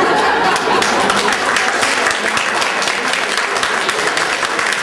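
Audience applauding: a room full of people clapping in a dense, steady patter.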